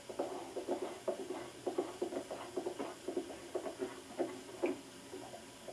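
Hoofbeats of a single horse ridden at speed on a dirt track, a quick, uneven run of knocks several times a second that thins out near the end.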